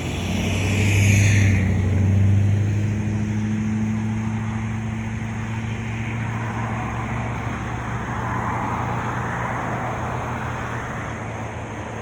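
A motor vehicle's engine running with a steady low hum, loudest one to two seconds in. Later a rush like a passing car's tyres swells and fades.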